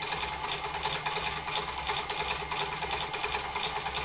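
Simat 101 lathe driven through a belt by a treadmill motor, running steadily at setting two, with the chuck at about 747 RPM. The machine vibrates, giving a fast, even clatter over a low hum.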